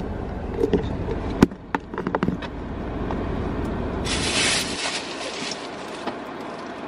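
A plastic shopping bag being handled and rustled, with a sharp click and small knocks, over a low hum inside a car cabin; the hum drops away about two-thirds of the way through.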